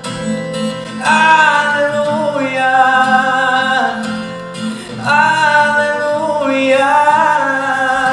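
A man singing long, held "aleluja" phrases in Croatian to his own acoustic guitar accompaniment, two phrases beginning about a second in and about five seconds in.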